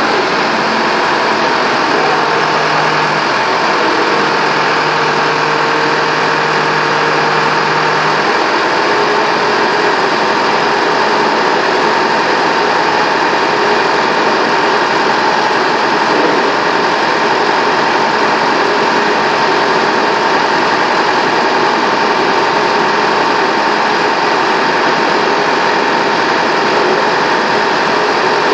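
Vehicle engines running steadily, a continuous loud drone that keeps the same pace and level throughout.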